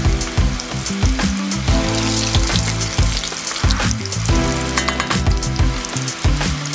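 Strips of namak parey dough deep-frying in hot oil in a steel pot, sizzling steadily as a plastic spoon stirs through them. Background music plays underneath.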